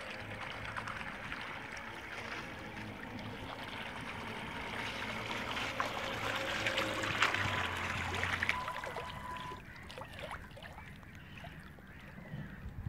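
Remote-control trimaran bait boat's propellers churning and splashing the water, louder as it passes close about six to eight seconds in, with a thin steady motor whine under the splashing. The sound drops off sharply near ten seconds in as the boat heads away.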